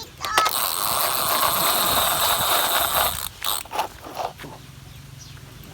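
Small geared electric motor of a battery-powered toy whirring and grinding for about three seconds, then stopping, followed by a few light plastic clicks.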